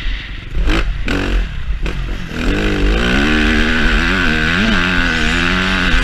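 Yamaha YZ-F four-stroke motocross bike engine under the rider's throttle. It is rough and choppy for the first couple of seconds, then revs up and rises and falls in pitch as the throttle is worked. Heavy wind rumble sits on the microphone throughout.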